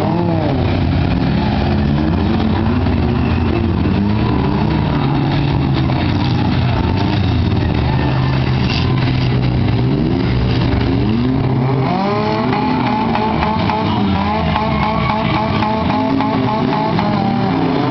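Several demolition derby cars' engines running at once, revving up and down in overlapping pitches, with a new rise in revs about two-thirds of the way through.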